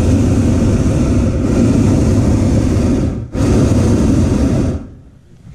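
Hot-air balloon's propane burner firing loudly and steadily. It cuts out for a split second about three seconds in, fires again, then shuts off sharply near the end.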